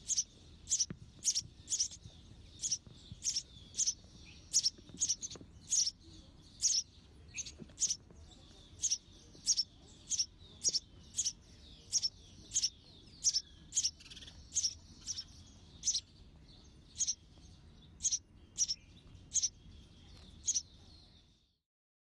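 House sparrows chirping: short, sharp cheeps repeated evenly about twice a second over a faint steady high hiss, the sound cutting off just before the end.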